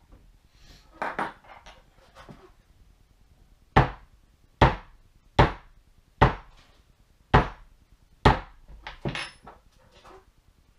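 White plastic maul striking a small randomizer backgrounding stamp into tooling leather: six sharp, evenly paced strikes about one every 0.8 s, starting about four seconds in, with a few lighter taps before and after.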